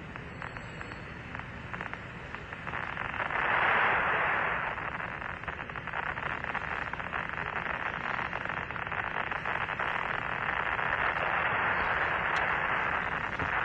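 Radio static hiss on the Apollo 11 air-to-ground voice link between transmissions. It swells louder for a couple of seconds about three seconds in, then carries on steadily.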